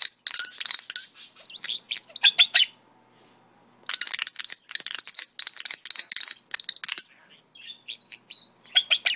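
Pet European starling singing in three bouts of rapid whistles, clicks and chatter. The middle bout is a fast ticking rattle over steady high whistles, and warbling whistles come near the end.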